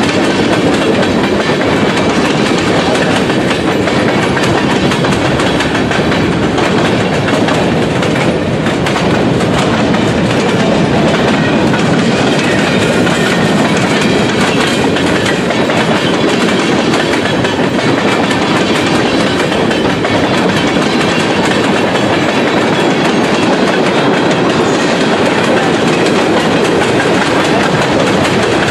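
Freight train of tank cars, boxcars and an autorack rolling past on the near track: steady, loud wheel-on-rail noise from the passing cars.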